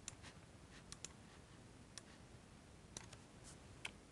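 Several faint, sharp clicks of a computer mouse, scattered irregularly over otherwise near-silent room tone.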